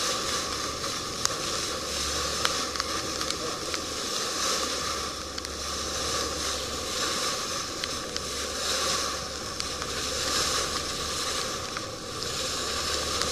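Boat under way: water rushing and hissing past the hull over a steady low hum, the hiss swelling and easing every few seconds, with a couple of brief sharp ticks in the first few seconds.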